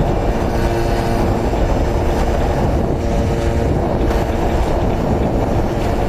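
Simson mopeds' 50 cc two-stroke engines running steadily at cruising speed, with wind rushing over the microphone.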